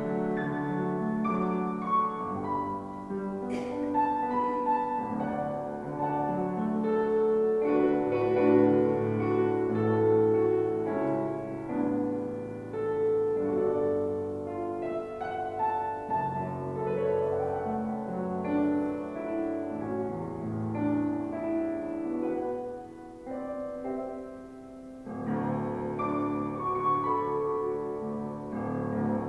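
Slow offertory music played on a piano, with held chords, growing quieter for a moment near the end.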